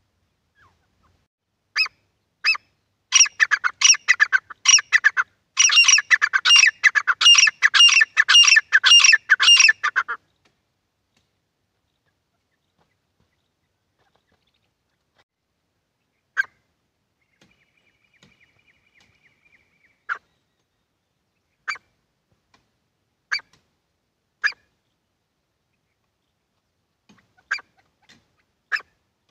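Caged francolins (titar) calling: a loud run of rapid, repeated harsh notes lasting about eight seconds, then, after a pause, single short sharp calls every second or two.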